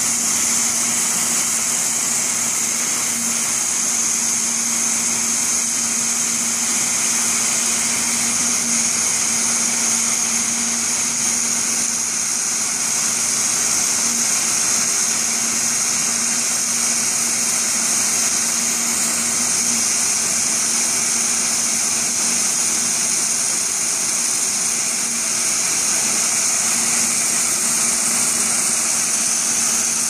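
ENZ Bulldozer sewer jetting nozzle firing high-pressure water jets backward, a steady loud hiss of spray. Under it, a jetting rig's engine and pump run steadily with a low hum.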